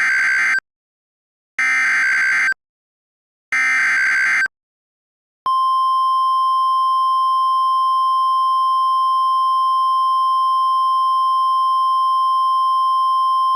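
Weather-radio alert sequence: three rapid warbling data bursts (SAME header), each about a second long with a second's gap, then the steady 1050 Hz warning alarm tone starting about five and a half seconds in. These signal an incoming tornado warning broadcast.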